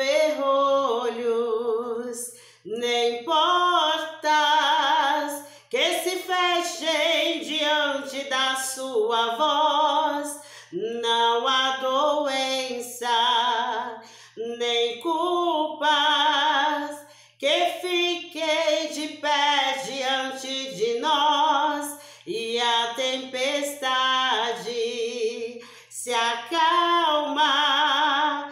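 A woman singing a song unaccompanied, in phrases a second or two long with a wavering vibrato on the held notes and brief pauses for breath between them.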